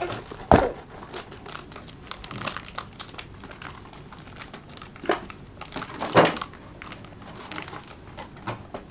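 Toy box packaging being handled and worked at while someone tries to open it: crinkling and small crackles, with a couple of sharper knocks about half a second in and again about six seconds in.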